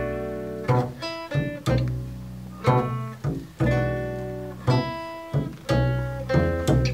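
Acoustic guitar and upright double bass playing an instrumental passage of a slow soul-blues ballad: plucked chords and notes struck in a slow rhythm, each left to ring and fade, over deep bass notes.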